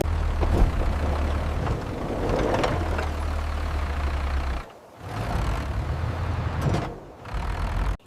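A vehicle engine running with a steady low rumble and a rough, noisy layer above it, dipping briefly twice.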